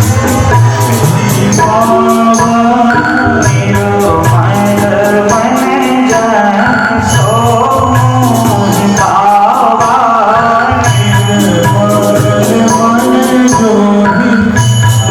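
Indian devotional music: an ornamented melody over a low sustained accompaniment, with percussion striking steadily throughout.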